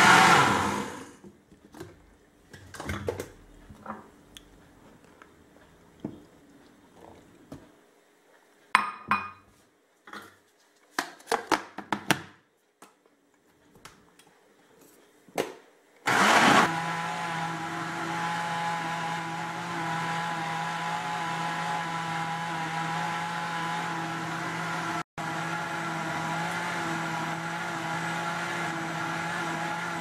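Countertop blender winding down, then a quiet stretch with a few scattered knocks and clinks. About halfway it is switched on again and runs steadily, beating thick cake batter in its plastic jug, with a momentary break near the end.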